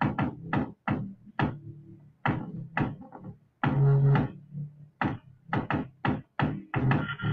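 Electronic beat of sharp percussive hits, about two to three a second, many with a short low synth note under them, and one longer, louder hit about four seconds in; it has a beatbox-like feel.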